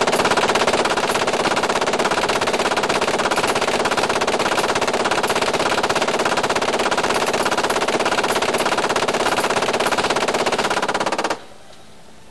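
M240 7.62 mm gas-operated machine gun firing one long continuous burst of rapid, evenly spaced shots, the timed 10-second, 130-round string, which cuts off abruptly about eleven seconds in, leaving a steady lower background noise.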